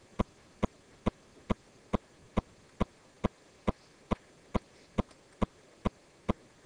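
A steady, evenly spaced series of short, sharp ticks, a little more than two per second.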